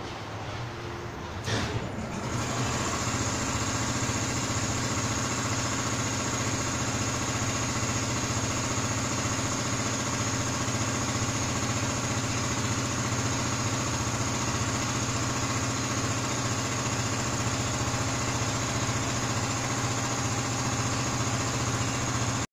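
A machine starting up with a click about a second and a half in, then running steadily with a low hum and a high whine.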